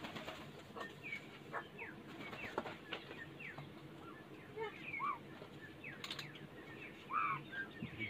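A bird's wings flapping as it flutters off the ground at the start, then short chirps and quick falling whistles from birds at intervals, with a sharp flap or knock about six seconds in.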